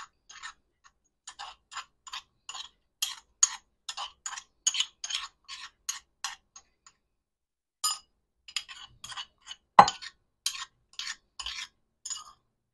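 A metal spoon scraping crushed mint leaves and lime out of a mortar into a glass, in short repeated scrapes about two or three a second, with a brief pause about halfway. One sharper knock comes about ten seconds in.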